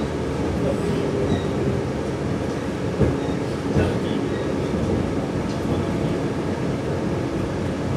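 Running noise inside a 485-series electric train carriage at speed: a steady rumble of wheels on rail, with one sharp clack about three seconds in and a lighter one just after.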